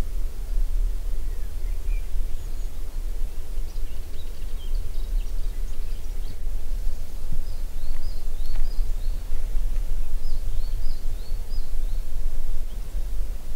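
Wind rumbling on the microphone, with a small songbird chirping short, high phrases in the background, most of them in the second half.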